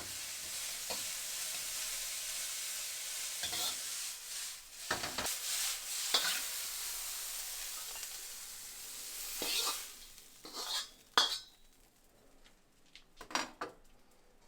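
Food sizzling in a hot pan while a spatula stirs and scrapes it. The sizzle stops about ten seconds in, and a few sharp clinks of a utensil on the pan follow.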